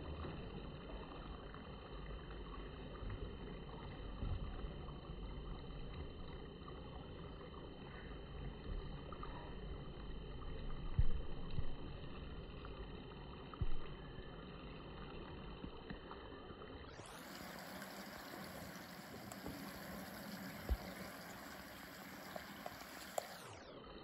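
Steady flow of a small urban river, an even rushing and trickling of water. Two brief knocks come near the middle, and in the last third the sound turns brighter and hissier for several seconds.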